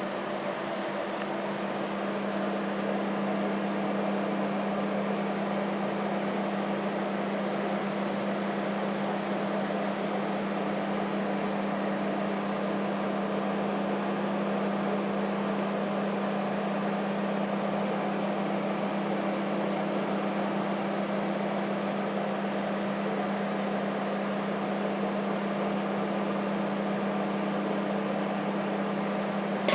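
Microwave oven running: a steady hum with an even rushing noise.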